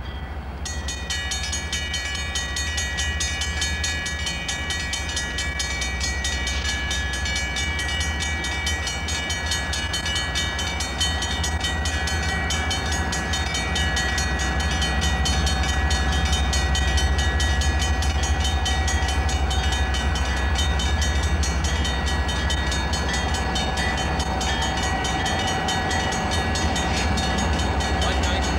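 An approaching Santa Fe diesel freight locomotive, its low engine rumble growing louder as it nears. Over it, from about a second in, the locomotive's bell rings steadily with quick, evenly repeated strokes.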